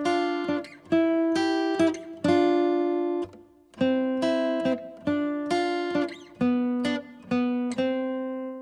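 Acoustic guitar music: strummed chords struck about once a second, each ringing out before the next.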